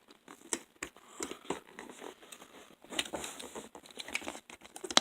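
Headset retail packaging being handled and opened: irregular crinkling, rustling and tearing of plastic and cardboard, with small clicks and knocks.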